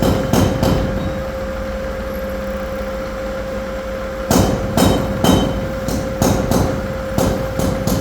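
Manual milling machine running with a steady hum while its cutter knocks and clatters through mahogany wood. The knocking stops about a second in and resumes after about three seconds, with the hum carrying on throughout.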